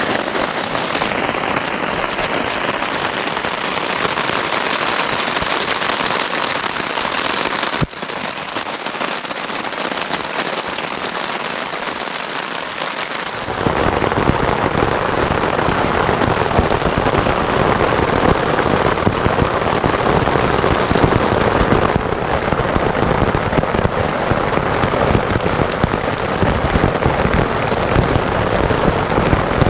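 Steady heavy rain falling. It gets louder and fuller from about halfway through.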